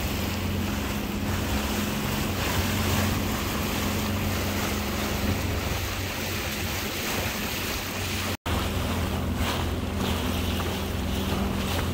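Sea-Doo Fish Pro personal watercraft engine idling with a steady low hum, under wind rush on the microphone and water around the hull. The sound cuts out for an instant a little past the middle.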